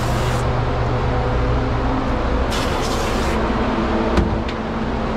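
Dog grooming dryer running steadily, a loud motor hum with rushing air. A short burst of higher hiss comes about two and a half seconds in, and there is a single click near the end.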